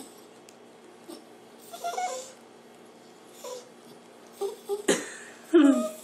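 Small dog making a few short, whiny, wavering moans, a weird noise. The last is the loudest and slides down in pitch near the end.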